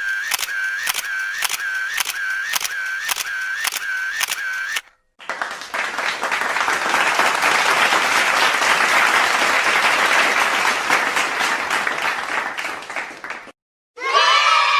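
A short clicking effect repeats about twice a second for nearly five seconds. Then a crowd applauds, swelling and fading for about eight seconds. Near the end, cheering and shouting begin.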